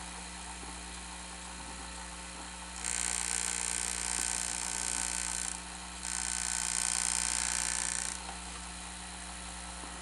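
Sony SL-HF500 Betamax VCR running in playback with its case open: a steady hum, and a hissing mechanical whir in two spells of about three and two seconds, the first starting about three seconds in. The owner takes the machine's behaviour for a servo problem.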